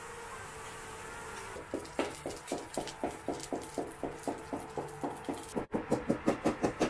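Regular rhythmic tapping, about four taps a second, starting a couple of seconds in; after a brief cut-out near the end it comes back louder and faster, about six taps a second.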